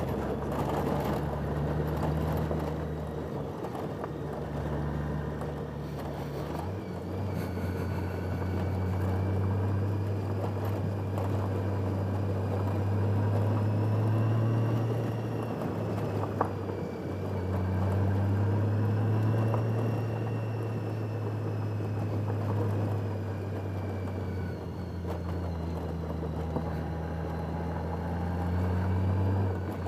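Motorcycle engine running under way with wind rush, its pitch rising and falling several times with the throttle.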